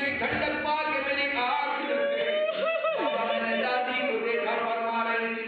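A man's voice reciting in a drawn-out, chant-like melody into a microphone, with long held notes and a wavering pitch.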